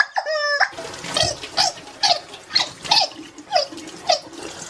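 Squeaky rubber chicken toy squeezed over and over. A squawk opens, then about two weaker, hissy squeaks come each second.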